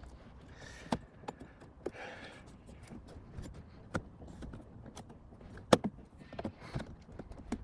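A butter knife prying at the plastic electric window switch panel in a Fiat Ducato door, making a series of irregular sharp clicks and taps of metal on plastic. The loudest click comes about three-quarters of the way through. The panel is held firm and is not coming out.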